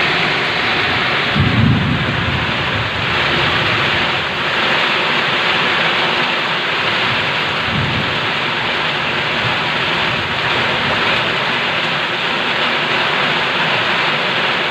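Heavy tropical downpour in storm wind: a loud, steady rain hiss, with two short low rumbles, one about two seconds in and one about eight seconds in.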